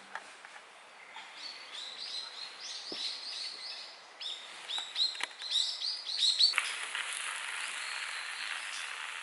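Small birds chirping: many short, high calls in quick runs. About two-thirds of the way through, a steady hiss takes over.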